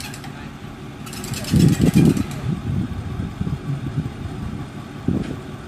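Pickup truck engine idling, with a rapid clicking rattle for about a second, about a second in, and low rumbling surges.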